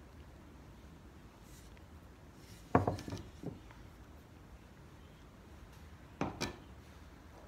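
Glazed ceramic pieces knocking against a hard surface as they are handled and set down: three sharp knocks a little under three seconds in, then two more about six seconds in.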